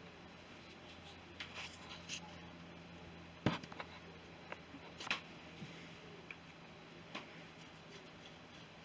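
Scattered light clicks and knocks of hand tools and small parts being handled while dismantling a motorcycle, the sharpest knock about three and a half seconds in, over a faint steady hum.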